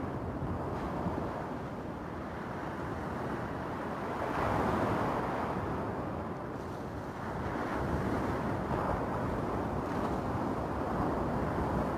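Small waves breaking and washing up a cobblestone beach, the surf rising and falling with each wave and loudest about four seconds in. Wind rumbles on the microphone underneath.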